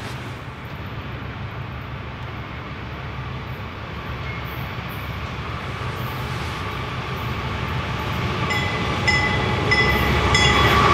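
CN diesel locomotive and train approaching on the rails, its rumble growing steadily louder. Near the end, a high ringing repeated about twice a second joins in.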